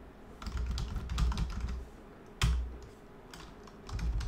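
Typing on a computer keyboard: bursts of key clicks, with a pause and one louder single click about two and a half seconds in.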